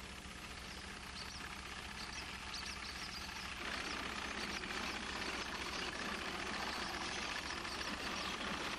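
Horse-drawn sickle-bar hay mower clattering steadily as its cutter bar cuts grass, growing louder about a third of the way in.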